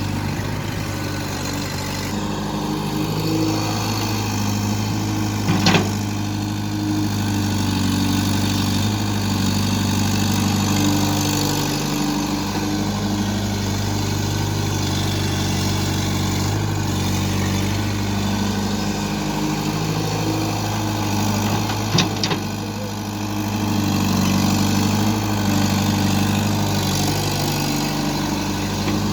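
JCB 3DX backhoe loader's diesel engine running steadily, its pitch shifting every few seconds as it works. Two sharp knocks stand out, one about six seconds in and one later.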